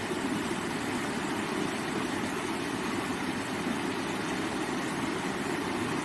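Shallow rocky river rushing over stones in small rapids: a steady, unbroken rush of water, fullest in the low and middle range.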